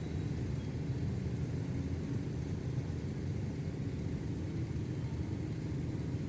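Road traffic going by on a busy main road: a steady low rumble of vehicle engines and tyres, with no single vehicle or horn standing out.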